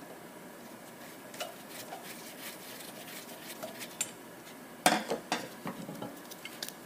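Small metal parts clinking and tapping as carburetor jets and tools are handled, with a quick cluster of louder clinks about five seconds in.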